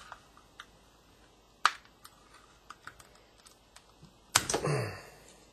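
Small plastic clicks and taps from a power window switch assembly being handled and pried at to pop its latched rocker buttons off, with one sharper click about a second and a half in. A louder, longer burst of handling noise comes about four and a half seconds in.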